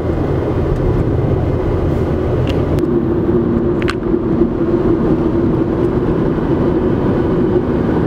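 Road and engine noise inside a moving car's cabin at highway speed: a steady rumble with a low drone, the deepest rumble easing about three seconds in.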